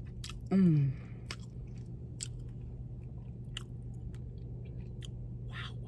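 A person chewing a mouthful of crisp-crusted pizza, with scattered wet mouth clicks and smacks. There is a short falling "mm" of enjoyment about half a second in. A steady low hum runs underneath.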